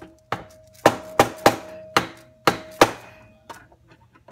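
Hammer blows on a cold chisel set against a solid block on a Tecumseh engine's aluminium casting, to knock a part free: about eight sharp metallic strikes, roughly two a second, each leaving a short ringing note.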